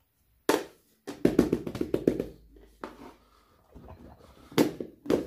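Plastic and rubber fidget toys being handled: a sharp knock, then a quick run of about eight taps, with two more sharp knocks near the end.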